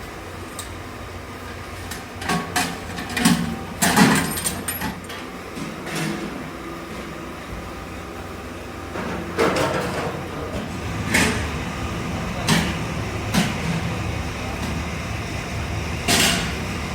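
Factory machinery running with a steady low hum, under irregular sharp metallic knocks and clanks, a few of them in quick clusters.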